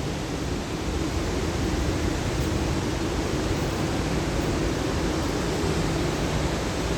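Steady, unbroken rush of a large waterfall, the Indravati River pouring over Chitrakoot Falls.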